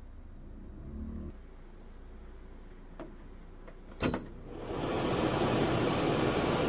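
Two clicks, the second louder, then an industrial dehumidifier starts up: a steady rush of fan air rises over about half a second and keeps running.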